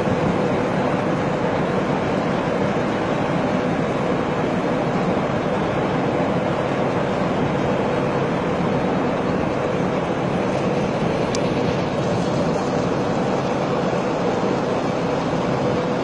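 Steady mechanical drone with a constant mid-pitched hum running through it, unchanging throughout.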